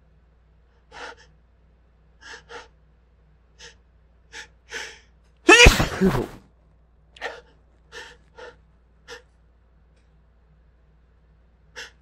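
A pepper- or spice-induced sneeze fit: a string of short, catching hitchy breaths, then one loud sneeze about five and a half seconds in, followed by more short gasping catches.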